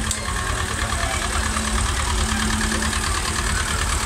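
Ursus C-330 tractor's two-cylinder diesel engine running steadily at low speed as it drives past close by, growing slightly louder as it draws near.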